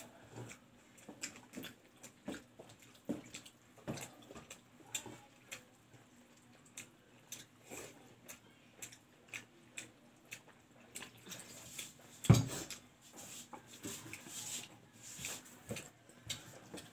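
Close-miked eating: chewing and lip smacks, with fingers working rice on a steel plate, heard as many small irregular clicks. One loud thump about twelve seconds in.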